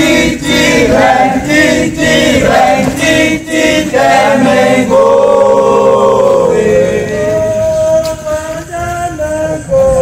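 A group of scouts singing a campfire call song together in chorus: short, rhythmic sung phrases at first, then a long held note about five seconds in, followed by further drawn-out sung notes.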